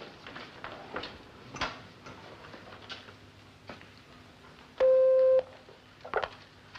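A desk buzzer sounds once, about five seconds in: a single steady electric buzz lasting about half a second, the loudest thing here. A few faint knocks come before and after it.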